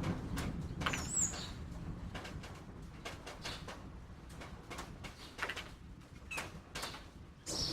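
Rain with scattered sharp drips and taps, under the low rumble of thunder dying away, and a few short bird chirps. A fresh roll of thunder starts suddenly near the end.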